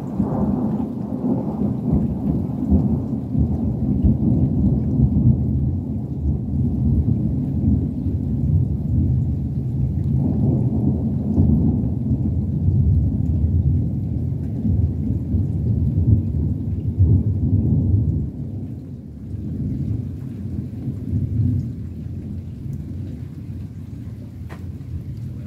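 Thunder rolling in a long low rumble that swells and then fades after about eighteen seconds.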